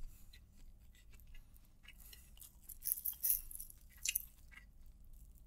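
Faint hand-eating sounds: fingers working fried rice on a plastic sheet, with soft chewing. There are scattered small clicks and a few short rustles about three and four seconds in.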